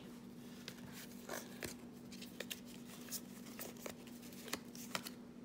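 A stack of football trading cards being thumbed through in the hand, each card sliding off the stack with a light click, a few clicks a second at an uneven pace. A steady low hum runs underneath.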